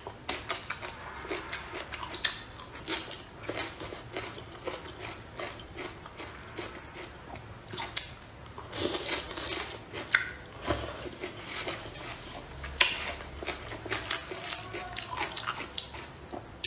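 A person biting and chewing food close to the microphone, here bok choy stalks and braised eggplant from a spicy fish dish, as a steady run of many short mouth clicks.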